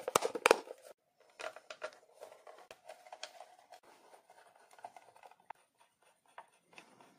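Plastic charger case clicking as it is pressed shut by hand: several sharp clicks in the first half second. Then faint scratching and ticking as a small screwdriver turns the case screw back in.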